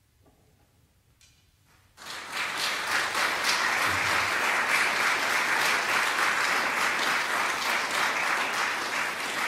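A hush, then audience applause breaking out suddenly about two seconds in and continuing as dense, steady clapping.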